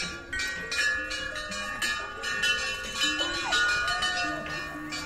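Temple bells struck over and over, about three strikes a second, their tones ringing on between the strikes.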